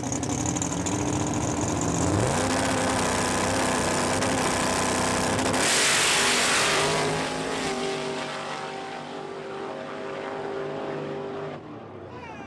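Drag-race pickup trucks' engines on the starting line: held at a steady fast idle, brought up to a higher steady rev about two seconds in, then a loud blast as the trucks launch about six seconds in. The engine sound then fades as the trucks run away down the track.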